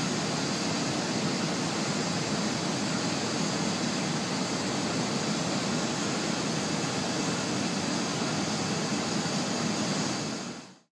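Steady airport-ramp aircraft noise: a constant jet-like rush with a high hiss, unchanging until it fades out quickly near the end.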